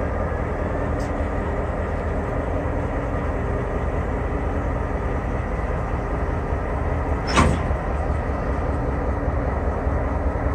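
EMD GP38-2 diesel-electric locomotive's 16-cylinder two-stroke engine running at low throttle as the locomotive pulls slowly forward, a steady low rumble. One brief sharp sound about seven seconds in.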